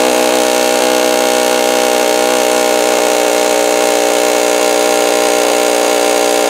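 Pneumatic air hammer running in one continuous steady buzz, driving a pickle fork against a rusted, seized steering ball joint that won't come loose; it stops at the very end.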